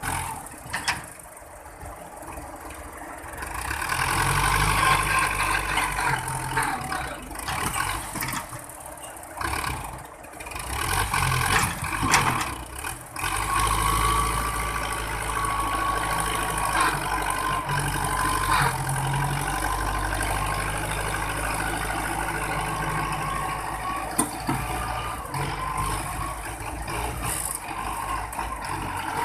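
A farm tractor's diesel engine running hard under heavy load as it strains to pull a trolley heaped with sand through soft ground. The engine note builds about four seconds in, eases around ten to thirteen seconds, then holds steady and strong, with a thin whine above it.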